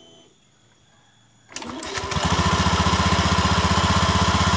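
Honda Beat ESP scooter's single-cylinder engine starting about a second and a half in, then idling steadily with an even, fast pulse, its CVT cover off so the belt drive and clutch are open.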